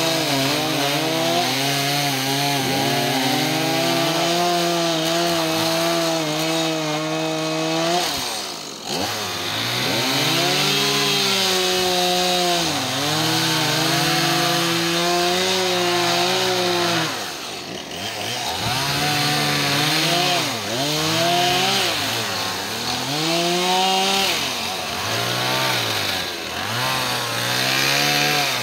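Gas chainsaw running at high revs while cutting through tree branches. The pitch sags each time the chain bites into the wood and climbs again as it frees. About 9 s in and again near 18 s it drops briefly toward idle and then revs back up.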